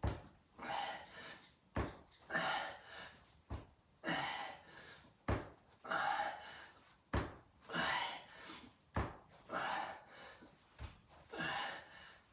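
A man breathing hard through leg-lowering reps, a loud exhale with each rep, and a sharp thud each time, about every two seconds, as his heels touch down on the mat.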